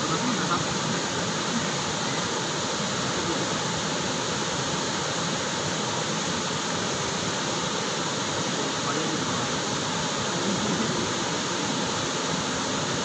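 Waterfall and the rapids below it, water rushing over rocks in a steady, unbroken noise.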